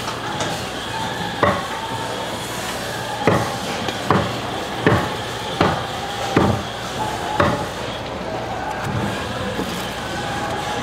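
A heavy, wide-bladed knife chopping into a whole tuna on a plastic cutting board: seven hard knocks with a short ring, the first alone and the rest coming just under a second apart, over a steady low hum.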